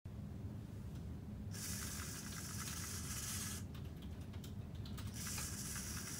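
Small DC motors driving the fingers of a 3D-printed robotic hand, whirring in two runs of about two seconds each as the fingers close and open. The first run starts about one and a half seconds in and the second near the end.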